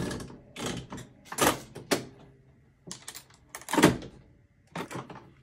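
Old mechanical nickel slot machine being worked by hand: a string of separate metallic clacks and rattles from its mechanism, the loudest just under four seconds in.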